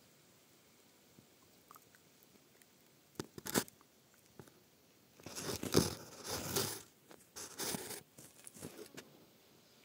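Close handling noise: bursts of rustling and crunching near the microphone, a short one about three seconds in and a longer stretch from about five to eight seconds in, then a few small ticks.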